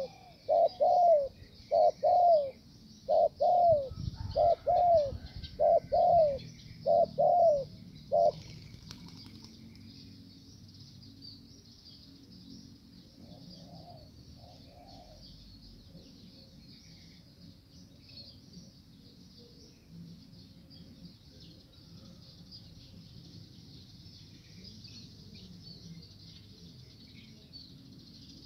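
Spotted dove cooing, a fast series of short rising-and-falling notes that stops about eight seconds in, with a few faint coos later. A brief low rumble comes about four seconds in, and insects buzz steadily and high throughout.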